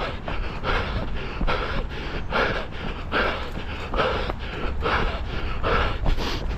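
A runner's heavy, rhythmic breathing close to the microphone, panting in and out, with a strong breath a little more than once a second and softer ones between.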